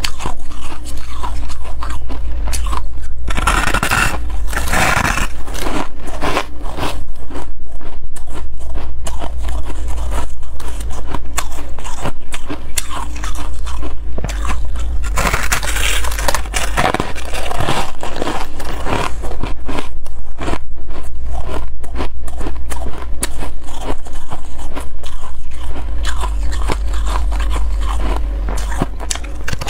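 Shaved ice being bitten and chewed close to the microphone: a dense run of crisp crunches, louder from about three to five seconds in and again around fifteen to seventeen seconds in. A steady low hum runs underneath.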